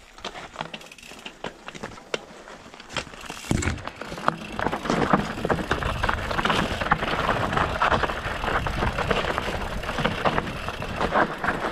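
Mountain bike being ridden over a rough trail: tyres crunching on dirt and stones, with a constant clatter of small knocks and rattles from the bike. It gets louder and busier from about three and a half seconds in.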